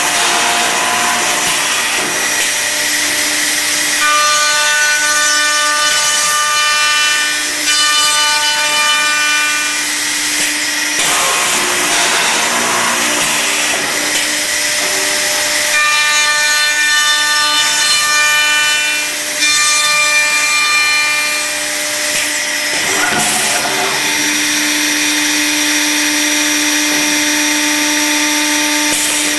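Accu-Systems CNC door-machining centre running, its spindles cutting into a wooden door for cup hinges with a steady whine under the cutting noise. Twice a cluster of high steady whines sets in for about five seconds.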